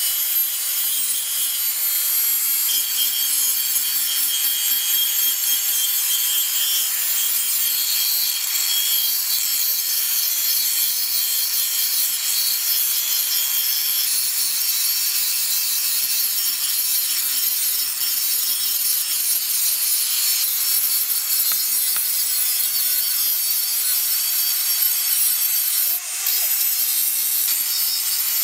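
Electric angle grinder running steadily with an abrasive disc grinding rust off a steel cleaver blade: a loud hissing grind over a steady motor hum. It dips briefly once near the end.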